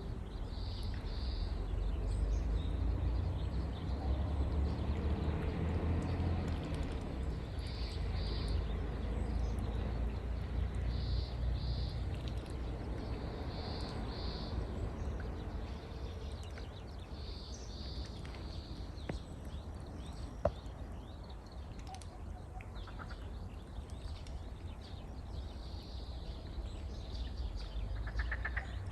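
A bird repeating a short, high two-note call every few seconds over a steady low rumble, with a single sharp click about two-thirds of the way through.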